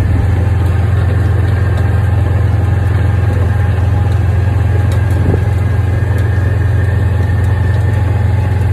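Side-by-side utility vehicle driving along, its engine and drivetrain giving a loud, steady low drone, heard from inside the open cab.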